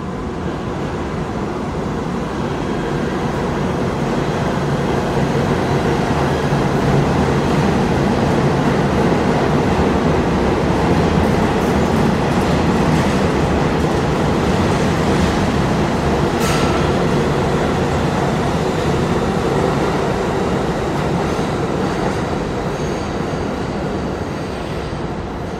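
Train of R42 subway cars running through the station without stopping: a steady rumble of wheels on rail that builds over the first several seconds, holds, and fades near the end, with a brief sharp squeal about two-thirds of the way through.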